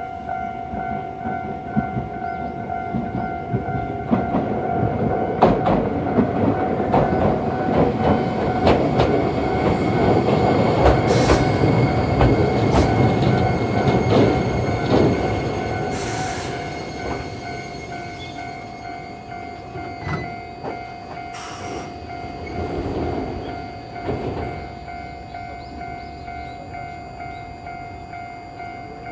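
Japanese level-crossing warning alarm ringing steadily while an Iyotetsu 3000 series train runs over the steel truss bridge, its wheels clacking over the rail joints. The train noise builds, is loudest around ten to fifteen seconds in, then fades while the alarm keeps ringing.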